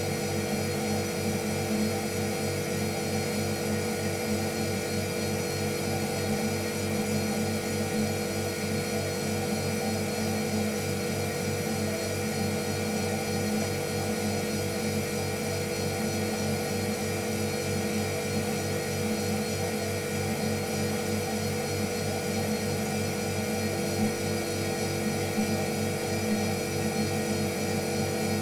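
A steady mechanical hum that keeps an even level, made of several held tones over a fast low throb, like a motor running.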